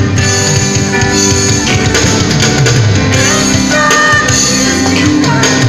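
Live gospel band playing: synthesizer keyboards, electric guitar and drum kit, with a woman singing over them.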